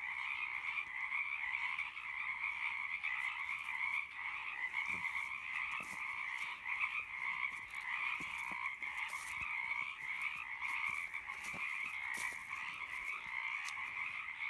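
Dense, unbroken chorus of many Pacific chorus frogs (Pacific treefrogs) calling together, their overlapping 'ribbit' calls merging into a steady wall of sound.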